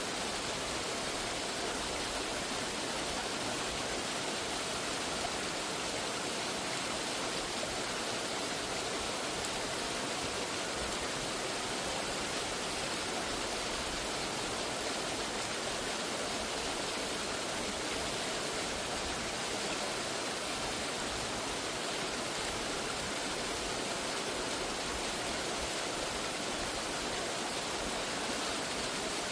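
Rushing water, the steady unbroken rush of a waterfall or fast mountain stream, even in level throughout.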